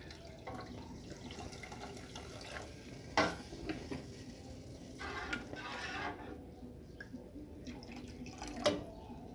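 Hot water poured from an aluminium kettle into a pot of sautéed onion and simmering, with sharp metal clinks of the kettle and a spoon against the pot, one about three seconds in and more near the end.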